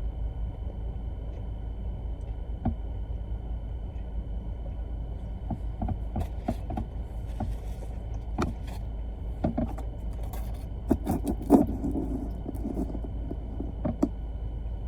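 Steady low rumble of a car with its engine running, heard inside the cabin, overlaid from about six seconds in by scattered short clicks and crackles, like food packaging being handled.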